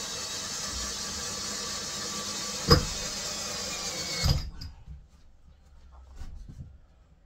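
Cordless drill-driver running steadily as it drives a long screw at an angle (toenailing) into the wooden bed frame, with a sharp knock partway through. The motor stops suddenly about four seconds in, followed by a few light knocks.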